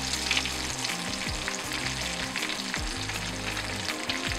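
Battered smelt frying in hot oil in a pan: a steady sizzle with crackling pops, and a fork stirring and turning the pieces in the bubbling oil.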